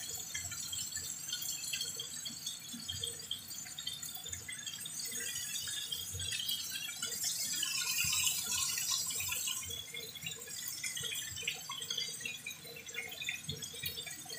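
Chicken pieces sizzling and crackling in hot oil in a frying pan, with scattered light knocks as tongs turn the pieces.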